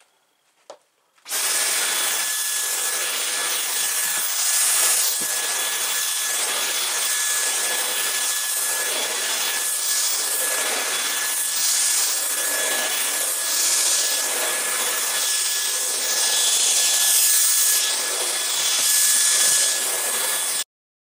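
Dyson V10 cordless stick vacuum running on a rug, a steady high motor whine with a rushing of air, swelling and easing with each push and pull of the cleaner head. It starts about a second in and cuts off suddenly near the end.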